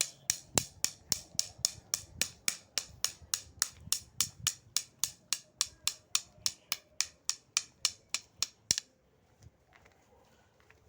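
A sound-effect drum struck in a steady rhythm of sharp, bright taps, about three to four a second, ending with a louder last hit about nine seconds in.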